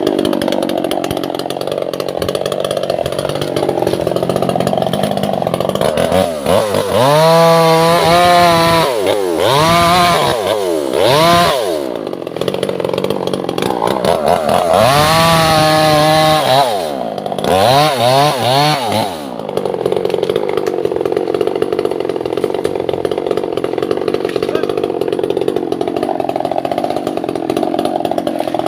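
Two-stroke chainsaw cutting albizia wood. Between about six and nineteen seconds in, the engine is revved up and let down several times, each rev a clear rising and falling whine. It then settles back into a steady, heavier running sound under load.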